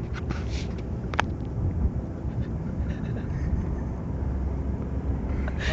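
Steady low rumble of a car's engine and tyres heard from inside the cabin while driving, with a single sharp click about a second in.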